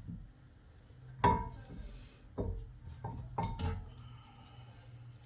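A series of sharp metallic clinks and knocks, each with a short ring: metal brake parts and tools being handled as the brake caliper is refitted. The loudest comes about a second in, then four lighter ones over the next two and a half seconds.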